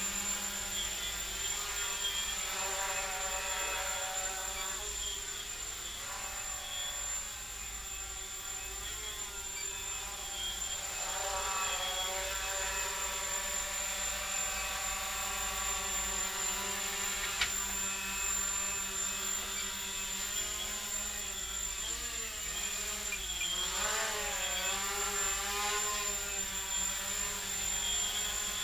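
Micro quadcopter (RC Logger Eye One Xtreme on a carbon fiber frame, with RC Tiger brushless motors and carbon fiber props) buzzing in flight, its whine rising and falling with throttle and swinging more quickly for a few seconds near the end. A single sharp tick about two-thirds of the way through.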